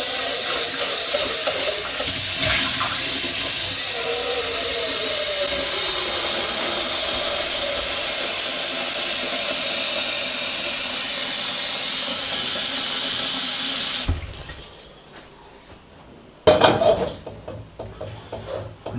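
Kitchen tap running hard into a stainless-steel pot, a tone in the water noise rising as the pot fills. The tap shuts off suddenly about 14 seconds in, and a couple of seconds later comes a clank and handling noise.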